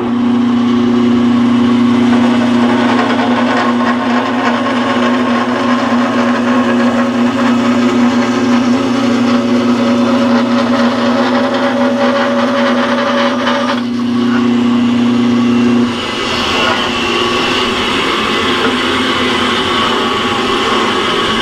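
Band saw fitted with a half-inch Wood Slicer blade resawing a slab off a rosewood block: a steady motor hum under the broad noise of the blade cutting. About 16 seconds in, the low hum drops out while a rushing noise carries on.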